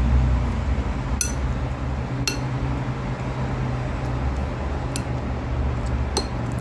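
Chopsticks clinking against a ceramic bowl about four times, each a sharp click with a brief ring, over a steady low hum.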